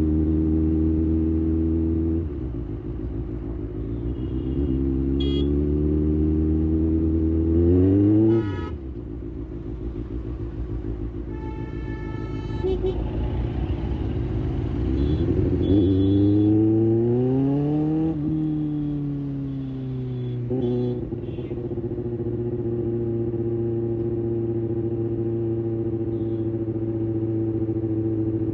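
Kawasaki ZX-6R's inline-four engine riding in traffic. It drops in pitch about two seconds in, rises twice as the rider accelerates, with a sudden drop after the first rise, then settles to a steady note near the end.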